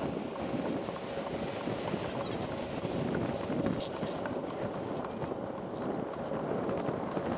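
Steady rumble of a bicycle riding along a paved bike lane, tyre and wind noise, with scattered small clicks and rattles.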